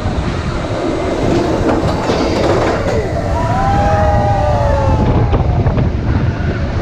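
Expedition Everest roller coaster train running along its track, a loud steady rumble and rattle with wind on the microphone. A few high, falling squeals come about three to five seconds in.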